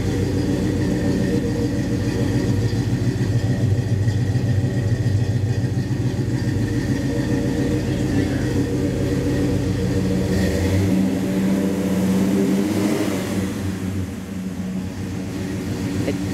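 1964 Pontiac GTO's 389 V8 running at a steady idle with a deep exhaust rumble; the lowest part of the rumble thins out about ten seconds in.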